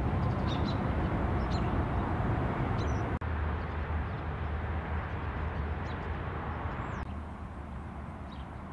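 Outdoor ambience: a steady low rumble of traffic, with small birds chirping briefly now and then. The background changes abruptly twice, about three and seven seconds in.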